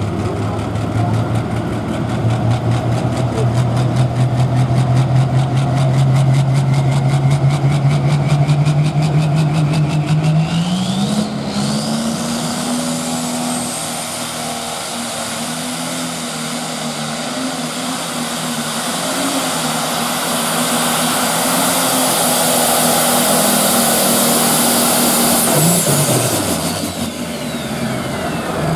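Turbocharged engine of a John Deere pulling tractor, holding a steady note, then climbing hard in revs about ten seconds in with a rising turbo whine as it pulls the sled. It runs at high revs for about fourteen seconds, then the revs fall away near the end as the throttle comes off.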